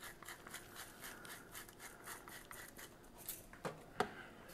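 Hand-twisted salt and pepper grinder grinding over a frying pan, a quiet run of short scraping strokes at about four a second. Two sharper knocks come near the end.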